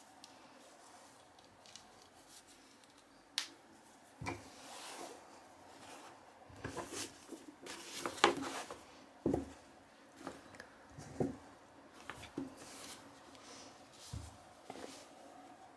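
Hands handling a fabric tote bag: cloth rustling with scattered soft knocks and taps as a paperback book is slid into the bag and the bag is folded. A sharp click comes a few seconds in, and the loudest knock about eight seconds in.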